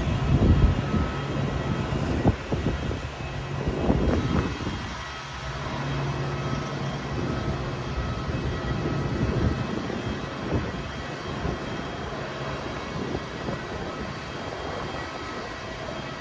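Steady whine and hum of a jet airliner running on the apron, with low gusts of wind buffeting the microphone near the start and again about four seconds in.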